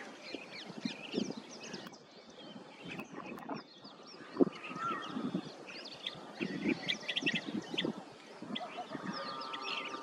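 Many birds calling at once: overlapping chirps and whistles, with lower calls beneath them and one sharp click about four and a half seconds in.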